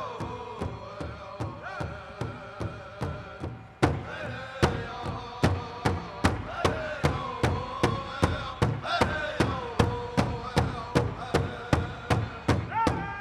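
Pow wow drum group: several singers chanting in unison over a big drum struck on a steady beat, about three strikes a second. The drumbeat turns louder about four seconds in.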